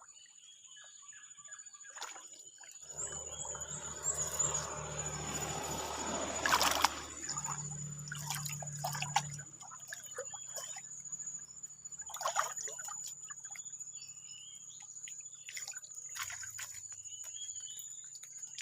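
Water splashing and trickling, heaviest in the first half with a loud splash about seven seconds in, then scattered smaller splashes, over a steady high-pitched insect drone.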